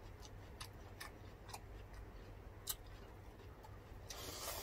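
Faint, scattered wet mouth clicks and smacks of people chewing food, with a short breathy hiss near the end.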